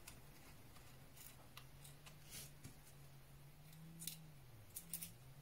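Faint, sparse clicks and ticks of a small precision screwdriver driving tiny screws into a machined metal M.2 SSD mini enclosure, with a faint low hum underneath.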